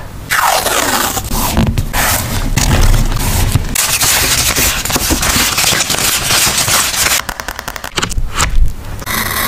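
Close-up crackling and scraping of paper or plastic packaging being handled, in dense runs broken by a few short pauses.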